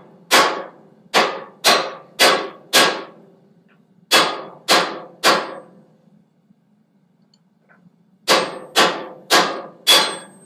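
Hand hammer striking hot coil-spring steel over a hardy cutting tool, nicking the chisel off its bar without going all the way through. Each blow rings sharply: five blows about two a second, then three, then a pause of a couple of seconds and four more. The running forge makes a faint low hum underneath.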